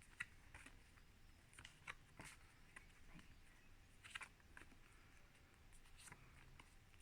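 Near silence: room tone with a few faint, short clicks about two seconds apart.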